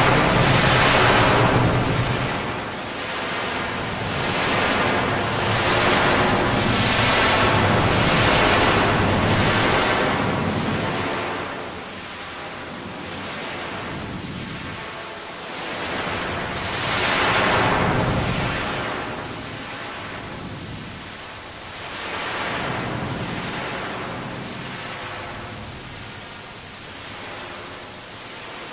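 A singing voice distorted past recognition into a loud hiss-like wash of noise. It swells and fades unevenly every few seconds, with no clear words or melody.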